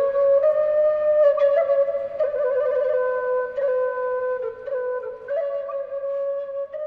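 Slow solo flute melody: a single line of held notes that step up and down, growing a little softer toward the end.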